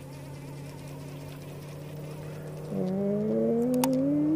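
A boat engine hums steadily at a low pitch. A little under three seconds in, a motor revs up and its pitch climbs steadily until the end.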